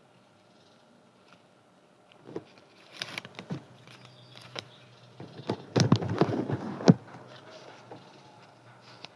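Paper being cut with scissors and handled: scattered sharp snips and crinkly rustles that start about two seconds in, busiest and loudest in the second half.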